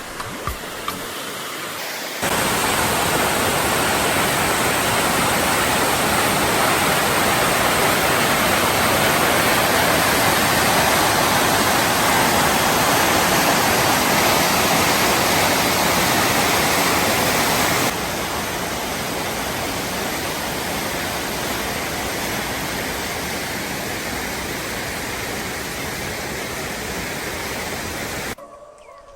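Waterfall cascade: a steady rush of falling water that starts abruptly, drops slightly in level about two-thirds of the way through and cuts off just before the end.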